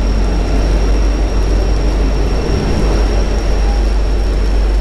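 Steady, loud rumbling hiss of a heavy downpour under a highway overpass.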